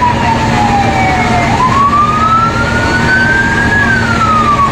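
Fire truck siren wailing in a slow rise and fall. It sweeps down in pitch, climbs back up over about two seconds, and starts falling again near the end, over a steady low hum and street noise.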